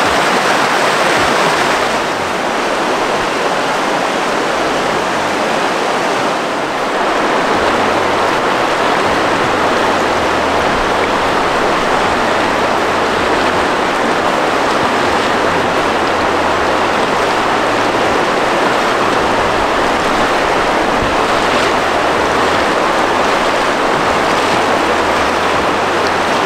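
Fast, shallow river rushing over rocks, a loud steady flow of whitewater.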